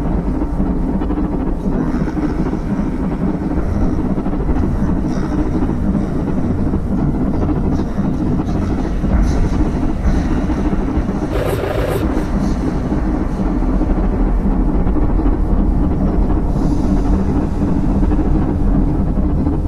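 Dense, steady low rumbling drone of an experimental album track, with a brief burst of harsh hiss a little over halfway through.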